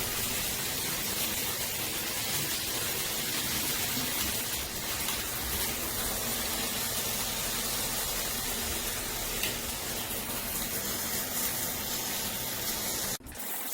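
Water spraying steadily from a MakeFit shower head, with a brief break near the end.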